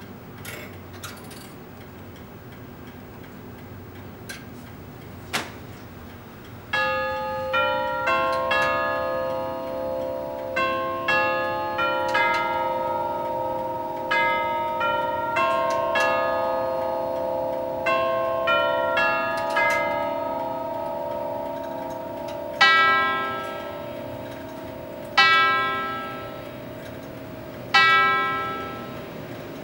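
Elliott of London 1901 tubular-chime grandfather clock ticking with a few clicks. Then its nine tuned chime tubes are struck in a ringing chime tune, and the hour strike follows: three slow, resonant strokes about two and a half seconds apart, each ringing down before the next.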